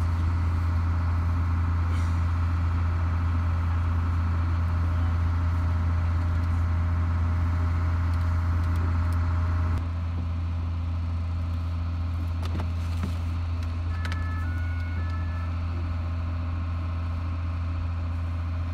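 Steady low engine hum of idling emergency vehicles, a little quieter after about ten seconds. A few short high beeps sound about fourteen seconds in.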